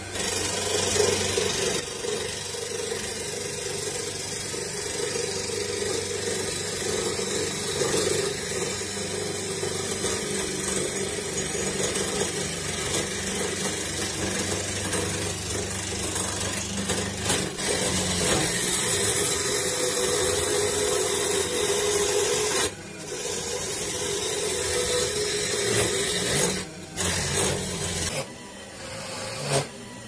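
Wood chisel cutting a spinning spruce blank on a homemade lathe driven by a washing machine motor: a continuous scraping rasp over the motor's steady hum. The cut breaks off briefly a few times near the end as the chisel is lifted.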